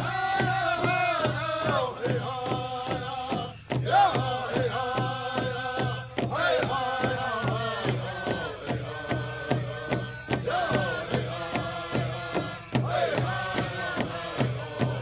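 Background music with a steady drum beat and a wavering, gliding melody.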